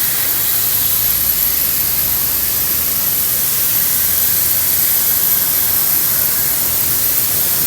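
CNC iron-cutting machine running: a steady, loud hissing rush with a thin high whine.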